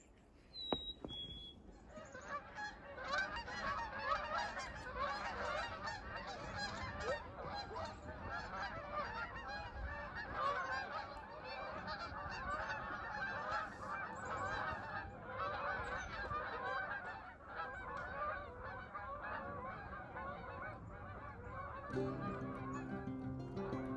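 A large flock of geese honking, a dense chorus of many overlapping calls that starts about two seconds in and keeps on. Guitar music comes in near the end.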